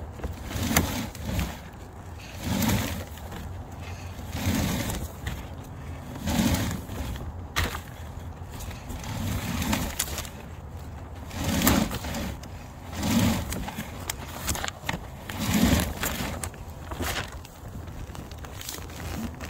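Rhythmic scraping and rustling, one surge about every two seconds, as a sewer inspection camera's push cable is fed by hand into the line in repeated strokes.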